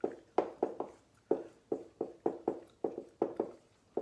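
Dry-erase marker squeaking on a whiteboard as words are handwritten, in short quick strokes about four a second.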